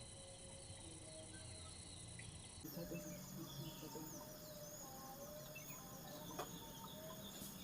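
Faint woodland ambience: small birds chirping with short gliding notes and insects buzzing over a steady hiss. The background changes abruptly about a third of the way in.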